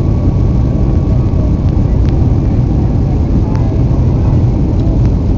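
Airplane cabin noise on the approach to landing: a steady low rumble of engines and rushing air heard from inside the cabin.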